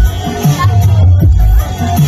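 Loud dance music with a heavy, pulsing bass beat and a melody line above it.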